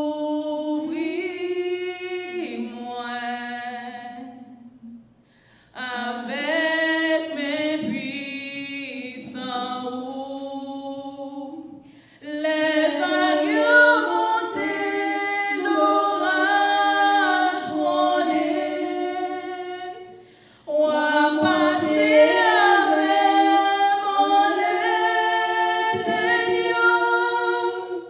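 A woman singing solo and unaccompanied, in four long phrases with short breaks for breath between them.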